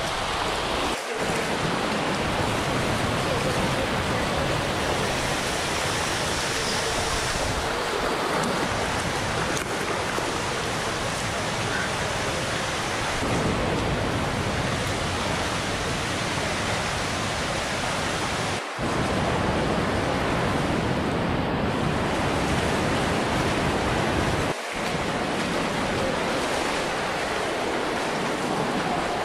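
Steady rushing roar of waterfalls and fast-flowing water, even and unbroken except for three very brief drops where the recording cuts.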